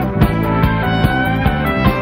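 Four-piece rock band (drums, bass, guitar and keyboards) playing live, recorded straight off the front-of-house mixing console. The drums keep a steady beat under sustained keyboard and guitar notes.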